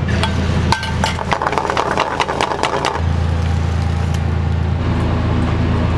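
Busy restaurant kitchen: a steady low hum of cooking equipment, with a quick run of metal clanks and clatter from pans and utensils lasting about two seconds, starting just under a second in.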